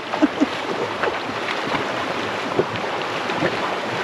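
Neoprene work boots wading and splashing through a shallow, rippling stream, irregular splashes over the steady rush of the running water.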